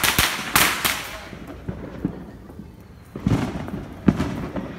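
Fireworks going off: a loud bang with a burst of crackling in the first second, then a deeper boom about three seconds in and another sharp bang a second later.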